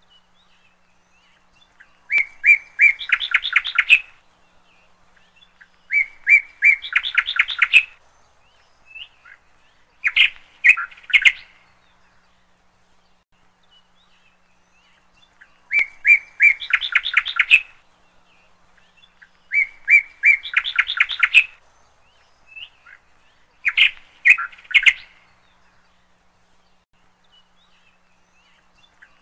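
A bird singing six short phrases, with pauses of a few seconds between them. Each phrase is a couple of chirps followed by a quick run of repeated notes.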